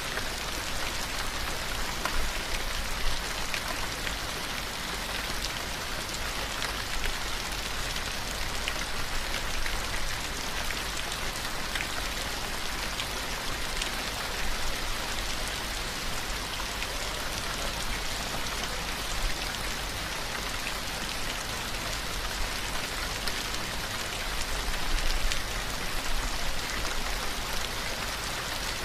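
Steady rain: an even hiss dotted with many small drop ticks, swelling slightly in places.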